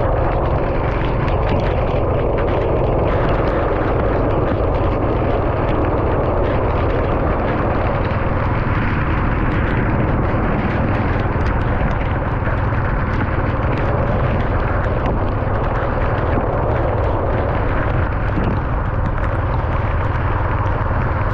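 Car driving in the rain on a wet road: a steady low rumble with a continuous hiss, and many small ticks scattered throughout.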